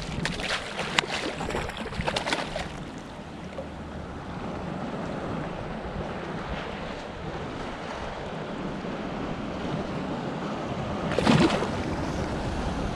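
A hooked tautog splashing and thrashing at the surface beside a kayak, a quick series of sharp splashes in the first couple of seconds. Then steady wind on the microphone and lapping water, with a louder whoosh about eleven seconds in.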